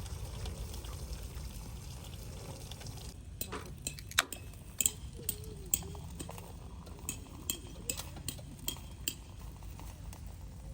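A run of light, ringing clinks, about fifteen over some six seconds, starting a few seconds in, over a steady low rumble.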